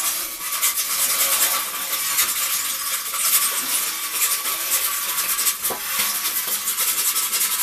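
Hand sanding of a painted metal tractor panel: a continuous scratchy rubbing made of many short strokes. The rough old paint surface is being sanded smooth so that it will not show through the primer.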